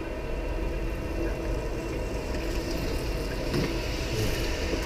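Steady low rumble, with a hiss that rises about three seconds in and fades near the end as a bicycle rolls up on wet pavement.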